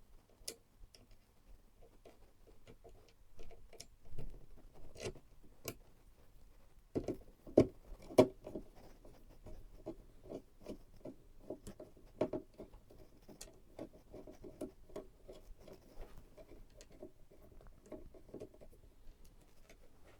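Light clicks and small knocks of computer hardware being handled. There are a few scattered ones at first, then a busy run of small knocks for about ten seconds in the middle, two of them louder about eight seconds in.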